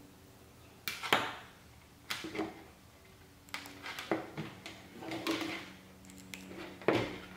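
Alligator clips being handled and snapped onto a resistor's leads and a multimeter test probe: a scattered string of short clicks and rustles of wire leads, over a faint steady hum.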